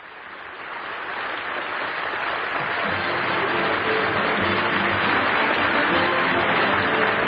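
Studio audience applause fading in and swelling, with a band playing faintly underneath from about three seconds in. It comes from an old television soundtrack with no treble.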